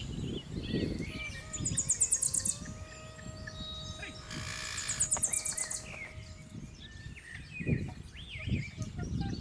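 Birds calling: short bursts of very high, rapid chirping trills, twice, among scattered thinner chirps, over rumbling outdoor background noise.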